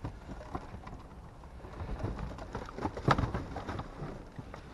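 Cardboard boxes and plastic packaging being handled and shifted: rustling with scattered light knocks and clicks, busiest in the second half, with the clearest knock about three seconds in.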